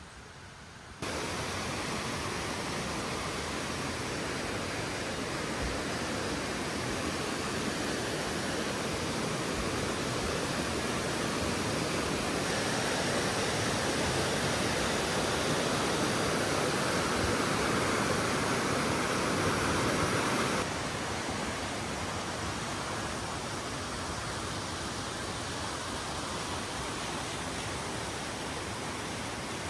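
Steady, even rush of falling water from a garden waterfall, starting abruptly about a second in and dropping a step in level about two-thirds of the way through.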